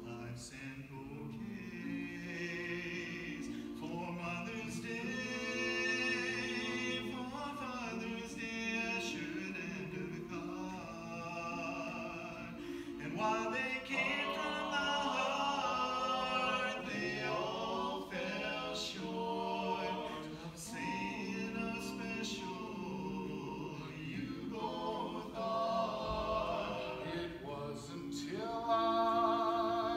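Barbershop quartet of four men singing a cappella in close four-part harmony, holding chords and moving from one to the next.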